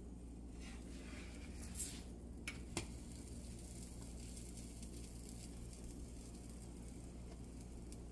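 Pancake batter sizzling faintly in a nonstick frying pan while a spatula slides under a pancake and flips it. There is a brief scraping hiss a little under two seconds in, then two sharp clicks of the spatula and pancake against the pan, over a steady low hum.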